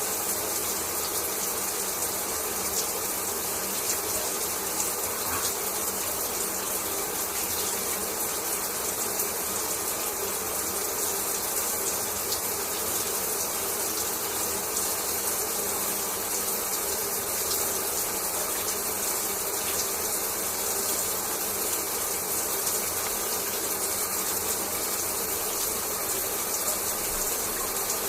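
Shower running: a steady, even hiss of water spraying and falling.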